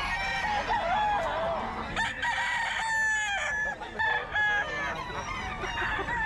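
Several gamecocks crowing and clucking around one another, with one long crow held for about a second and a half starting about two seconds in.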